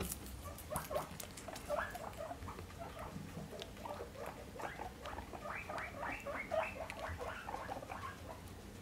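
Guinea pigs squeaking in a long run of short, rising calls that come quicker and go higher about halfway through, with faint crunching of lettuce.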